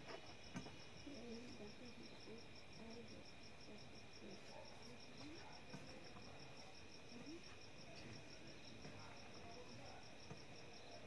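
Faint cricket chirping in fast, even pulses throughout, with a few soft clicks of fingers mixing rice on a steel plate.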